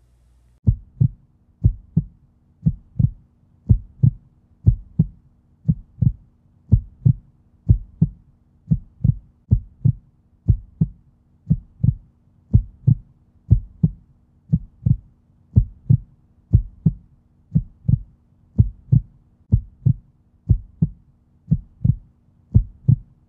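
Heartbeat sound effect: low paired thumps, lub-dub, about one beat a second, steady throughout.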